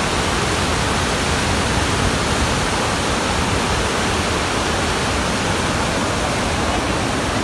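Wide river waterfall and rapids pouring over rocks: a loud, steady rush of water that does not change.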